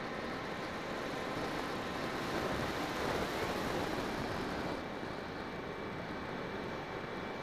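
Electric motor and propeller of a Bixler 2 RC plane humming steadily under a rush of wind, heard through the onboard keychain camera's microphone. The rush swells for a couple of seconds midway, then drops and thins about five seconds in.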